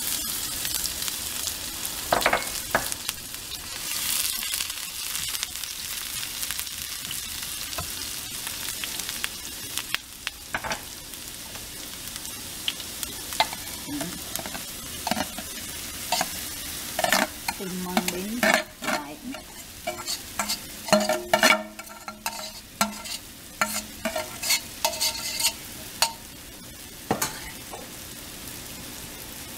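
Chopped green onion sizzling in hot oil in a nonstick frying pan, a steady hiss throughout. In the second half, steamed mung bean is scraped from a bowl into the pan, with many clicks, knocks and clinks of the utensil and bowl against the pan over the continuing sizzle.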